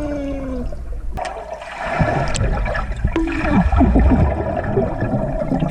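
Swimming-pool water churning and gurgling close to the microphone, growing into a louder bubbling wash from about a second in.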